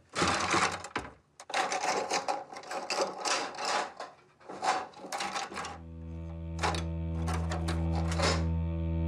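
Kitchen drawers and cupboards being opened and rummaged through, with quick irregular rattling and clattering of their contents. A little over halfway through, a steady low music drone comes in under a few last clatters.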